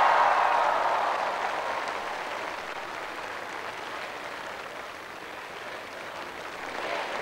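Large crowd applauding and cheering, loudest at the start, dying down through the middle and swelling again near the end.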